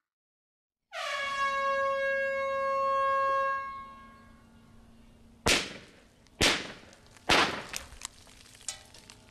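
A blasting warning air horn sounds one long note, sliding down slightly as it starts, then fades. Three sharp blast bangs follow about a second apart as the rock is shot, with a scatter of small clicks from falling rock fragments afterwards.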